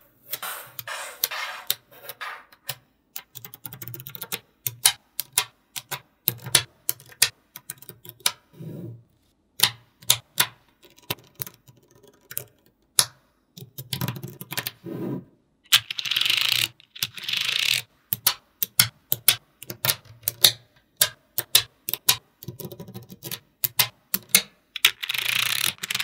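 Small neodymium magnetic balls clicking and snapping together in quick, irregular taps as they are placed one by one, with two longer stretches of continuous rattling, one about two thirds of the way in and one near the end.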